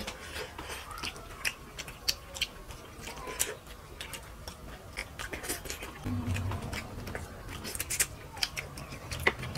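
Close-up eating sounds of fish curry and rice eaten by hand: wet chewing and lip smacks, with many short sharp clicks. A brief low hum about six seconds in.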